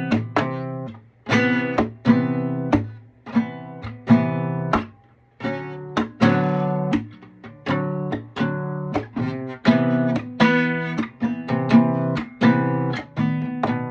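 Classical guitar strummed in a repeating rhythm: fingernail downstrokes ring out chords, each cut by a sharp percussive smack of the hand on the strings.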